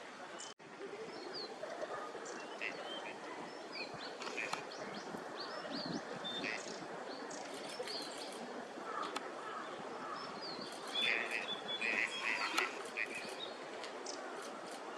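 Several birds calling: many short high chirps and whistles scattered throughout, busiest about eleven to thirteen seconds in. A momentary dropout in the sound comes just after the start.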